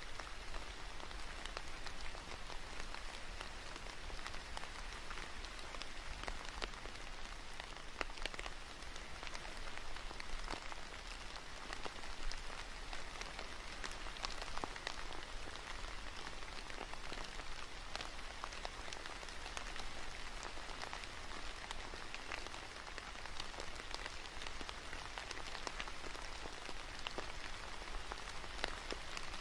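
Steady rain falling on leaves, with many individual drops ticking throughout.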